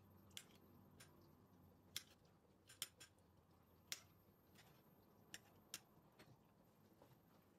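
Sharp, light taps and clicks of kitchen utensils handling ingredients, about nine at irregular intervals over a faint steady hum.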